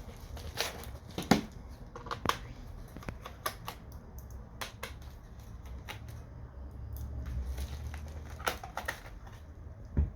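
Irregular clicks, taps and knocks of a laptop and small parts being handled and worked on, over a steady low hum.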